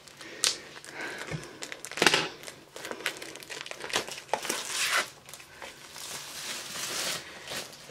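Packaging on a diamond painting kit's box crinkling and tearing as it is picked open by hand, in irregular crackles with a few sharper snaps.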